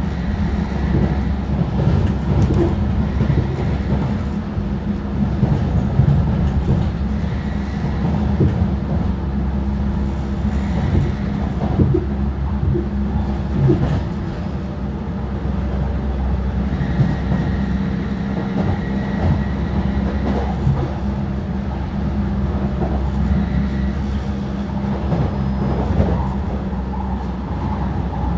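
Jubilee line 1996 Tube stock train running at about 50 mph, heard from inside the carriage: a steady, dense wheel-and-rail rumble with a few faint steady tones over it and occasional clicks.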